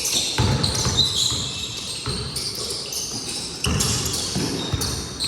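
Basketball bouncing on a court during a pickup game: a few thumps at uneven intervals, with short high-pitched squeaks between them.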